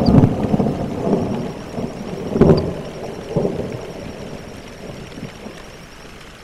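Deep rolling rumble, loudest at the start, swelling twice more about two and a half and three and a half seconds in, then dying away.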